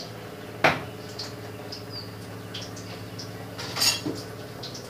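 Metal utensil clinking against a large stainless steel pot of salted water: one sharp clink about half a second in, and a ringing clatter near four seconds, over a steady low hum.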